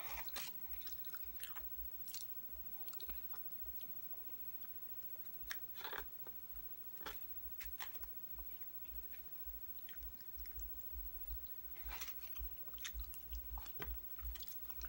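Close-up chewing of a mouthful of chicken alfredo pasta, quiet and irregular, with wet mouth clicks and lip smacks.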